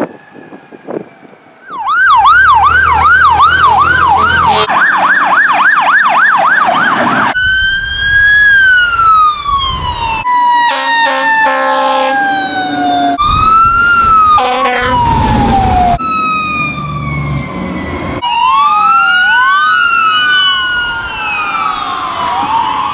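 A rapid string of short emergency-vehicle siren clips cut one after another: fast yelping sirens, then long falling wails, with steady horn tones in places and several sirens sweeping over each other near the end.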